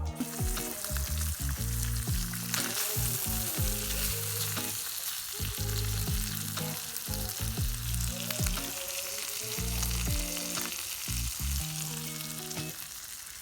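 Blue cod fillets sizzling steadily as they fry over an open fire, with a continuous hiss and small crackles of spitting fat.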